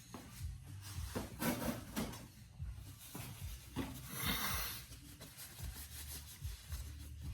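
Rubbing and scraping as a shop towel is worked around a CV axle clamped in a bench vise: a few short rustles, then a longer rasping rub about four seconds in.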